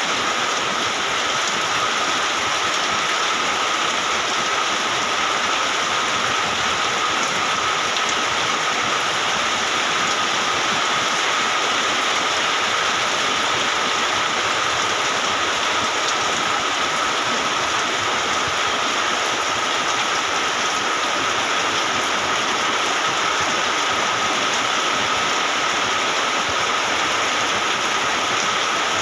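Heavy rain falling steadily, an even hiss with a thin steady tone running through it.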